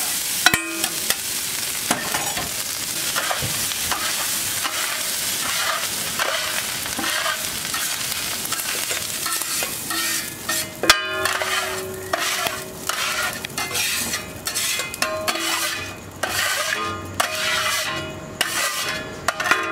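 Egg fried rice sizzling on a large flat griddle as two metal spatulas stir and chop through it. From about halfway, the spatulas scrape it off the griddle into a steel bowl with many sharp metal clanks and short ringing tones.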